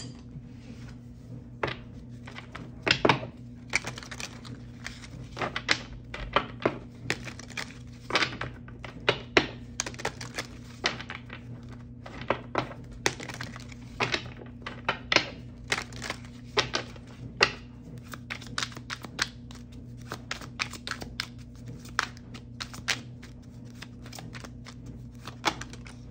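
Tarot or oracle cards being shuffled and handled on a table: irregular sharp clicks and taps, one or two a second, over a steady low hum.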